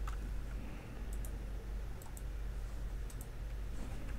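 A few faint computer mouse clicks, in quick pairs about a second apart, over a low steady hum.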